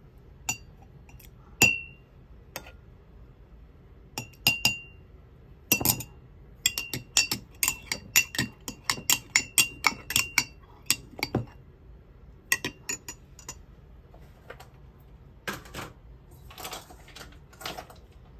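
A metal spoon clinking against a thick glass tumbler while seeds and syrup are spooned in and stirred. A few single ringing clinks come first, then a quick run of clinks, about four a second, through the middle, then softer scraping near the end.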